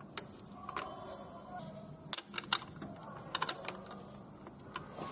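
Honda Accord's automatic serpentine-belt tensioner being levered by hand, giving scattered clicks and catching sounds as it moves stiffly. The catching shows the tensioner is binding, which the mechanic puts down to a failing or rusted spring inside.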